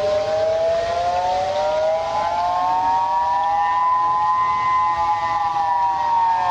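Civil-defense-style warning siren wailing as part of an emergency alert: a chord of several tones slides slowly up for about four seconds, then starts to fall near the end.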